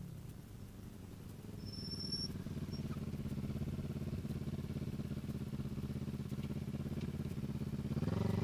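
Race-modified 2007 Kawasaki Ninja 650R parallel-twin engine (pistons, cams, lightened crank, ported head) idling steadily after dropping back from a rev. Near the end the throttle is blipped and the revs rise.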